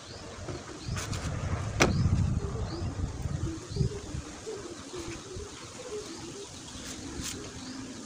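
Two metal spatulas scraping and smearing soft body filler against each other, with a few sharp clicks of the blades. A louder low rumble swells about a second in, and short bird calls repeat in the background.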